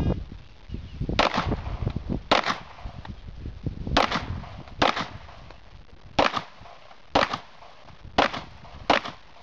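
Glock pistol fired eight times in a slow, uneven string, about a second between shots.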